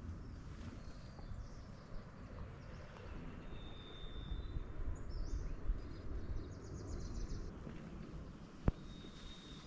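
Outdoor ambience with a low rumble and a few bird calls: a thin held whistle about four seconds in, a quick run of high notes a little later, and another held whistle near the end. A single sharp click sounds shortly before the end.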